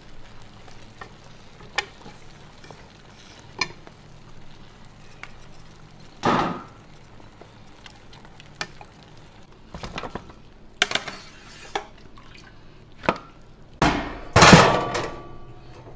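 Steel ladle knocking and scraping against a pressure cooker pot while braised pig's trotters are stirred, in scattered light clinks and one heavier thump. Near the end comes the loudest sound, a clatter lasting about a second.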